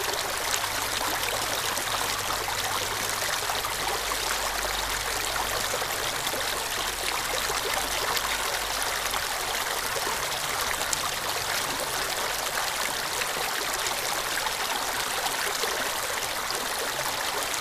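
Shallow stream running over rocks, a steady, even trickle and splash of water.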